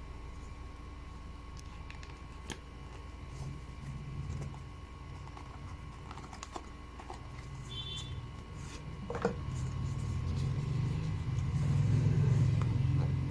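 Earbud packaging being handled and opened: scattered light clicks and taps, with a low rubbing rumble that grows louder in the second half.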